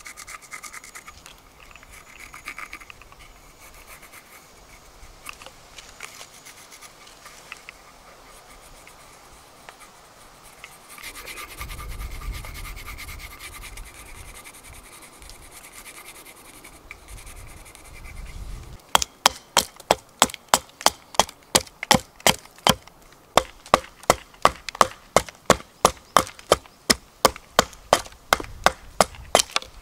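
A pencil scratching faintly on a wooden blank. About two-thirds of the way in it gives way to a hatchet striking and shaving the upright wood blank, with sharp, even chops at about two a second.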